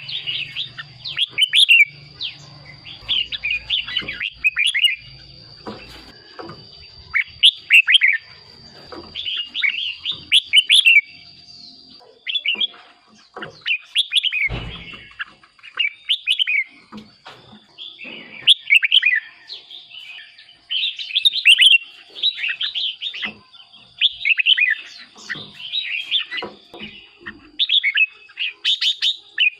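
Red-whiskered bulbul song: short, loud warbling phrases with quick pitch sweeps, repeated every second or two. A faint steady high tone runs behind, and a brief low thump comes about halfway through.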